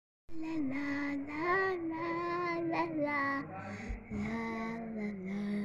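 A child's voice singing a slow, wordless melody of long held notes.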